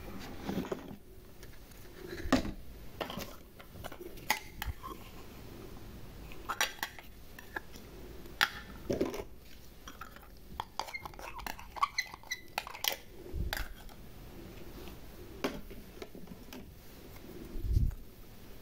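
Small plastic toy kitchen pieces (cups, pot and lid, spoons and spatulas) being picked up, set down and hung on a rail: scattered light plastic clicks, taps and clatters, with a couple of duller knocks, one about two thirds of the way in and a louder one near the end.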